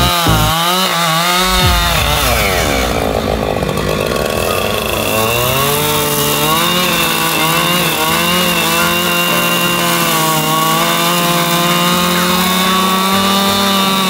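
Two-stroke chainsaw cutting into a large log. The engine pitch swings up and down quickly at first and sags under load a few seconds in. It then holds more steadily through the cut, with slow rises and falls.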